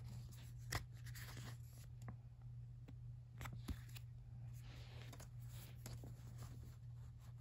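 Handling of a paper CD booklet and a plastic jewel case: pages rustling and light clicks and taps, with two sharper clicks, one just under a second in and one near four seconds, over a steady low hum.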